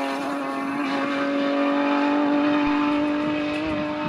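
Rally car engine at high revs at full throttle, holding an almost steady high pitch for about four seconds and edging slightly higher near the end before it cuts off.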